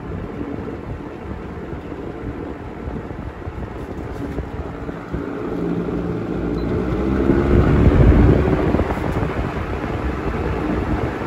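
Lasko Model 1600 16-inch electronic window fan running, a steady rush of air with a low hum. About halfway through, as its touch pad is pressed, it grows louder, peaking about two-thirds of the way in before easing a little.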